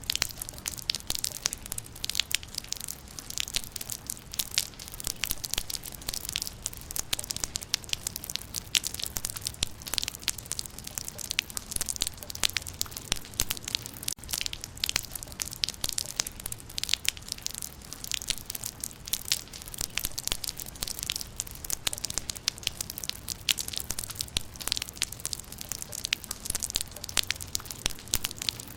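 Rain falling on leaves: a dense, irregular patter of drops tapping on foliage, over a low steady rumble.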